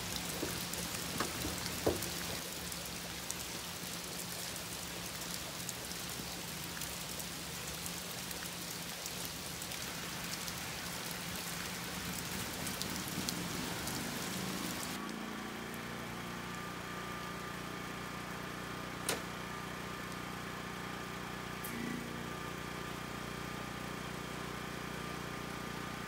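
Rain falling steadily, with the steady hum of a Westinghouse WPRO8500 portable generator running underneath. About halfway through, the rain cuts off abruptly and only the generator's even engine hum remains, with a single sharp click a little later.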